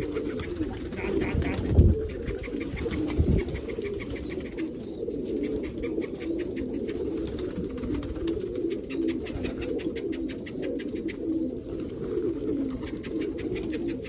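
Domestic pigeons in a loft cooing together, a steady low cooing throughout. A run of fast light clicks sounds over the middle of it, with two low thumps in the first few seconds.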